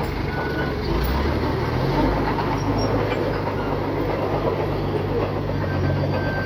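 Bulldozer's diesel engine running under load, its pitch stepping up about two seconds in and then holding, over a dense clatter of steel tracks and pushed dirt and rock.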